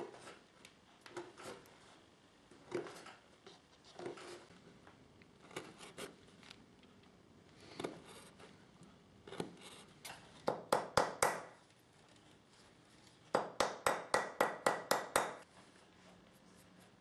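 Steel awl point scratching and scoring a thin leather strip held on a wooden board. Scattered single strokes come first, then a quick run of about four loud strokes, and after a short pause a faster run of about nine.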